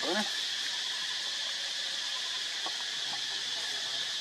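Insects droning steadily in high even bands, with a short pitched call right at the start.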